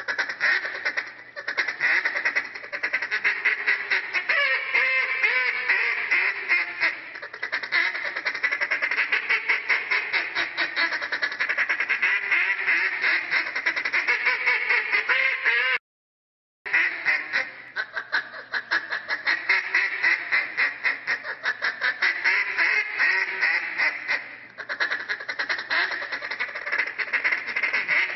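Hand-held duck call blown in fast, continuous runs of short quacks, imitating a live duck. The sound cuts out completely for just under a second a little past the middle.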